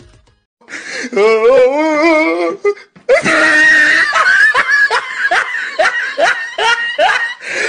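Loud laughter. After a short silent gap comes one wavering, drawn-out laugh. From about three seconds in it turns into a run of short, repeated laughs, about two or three a second.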